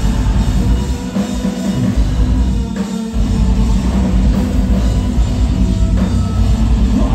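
Metalcore band playing live at full volume: distorted electric guitars, bass and a hard-driving drum kit, with keyboards, in an instrumental stretch without singing. The bass and kick drop out briefly twice in the first three seconds.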